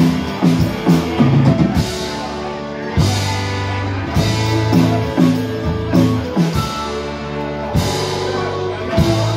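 Live band playing an instrumental passage, with a drum kit keeping a steady beat under acoustic guitar, a plucked mandolin-like instrument and electric bass.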